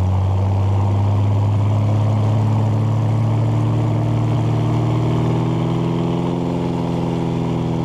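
Single-engine light aircraft's piston engine and propeller running at low power while taxiing on a grass strip: a steady, deep drone.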